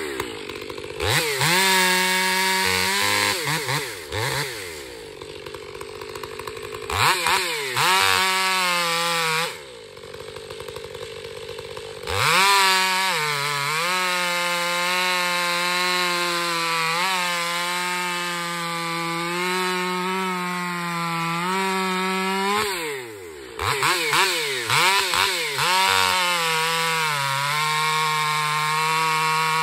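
Stihl 500i two-stroke chainsaw fitted with a Westcoast Saws Barkbox muffler, cutting a log at full throttle. It makes several cuts and drops back to a lower idle between them. The longest cut holds steady revs for about ten seconds through the middle.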